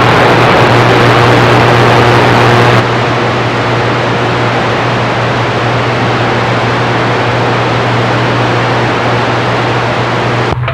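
CB radio speaker putting out loud, steady static with a steady low hum under it while a keyed-up carrier holds the channel and no voice comes through; about three seconds in the hiss turns duller and a little quieter. The operator takes it for somebody else trying to transmit over the station he was hearing.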